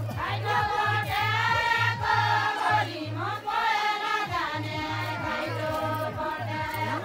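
Women's voices singing together in chorus over a steady low beat of about three pulses a second. The beat drops out for about a second around halfway.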